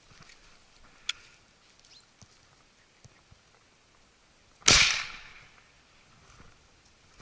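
A single shotgun shot from an SKB 505 over-and-under, fired at a flying thrush about two-thirds of the way in. Its report fades over about half a second.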